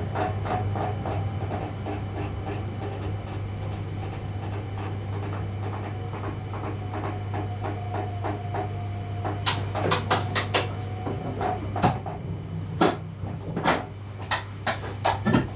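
Electric train's steady low hum with a fast, regular clicking for the first nine seconds or so. From about ten seconds in come a series of loud, sharp clicks and knocks.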